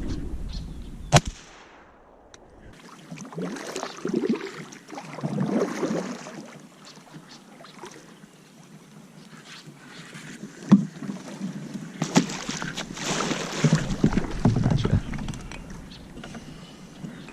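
Kayak being paddled through marsh water, with paddle splashes and the hull and paddle rustling against cattails in uneven spells. A single sharp bang comes about a second in.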